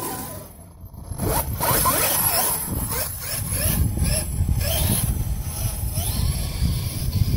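Brushless electric motor of a KM X2 RC truck, a 520 kV Leopard running on 8 cells, whining up in pitch several times as the truck accelerates over grass. A steady low rumble runs underneath.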